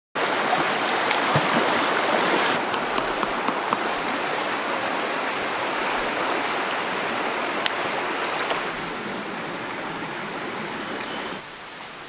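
Shallow rocky stream rushing over stones, a steady wash of water noise that drops in level a few times and is softer in the last second. Toward the end a rapid, high-pitched ticking runs for about two seconds over the water.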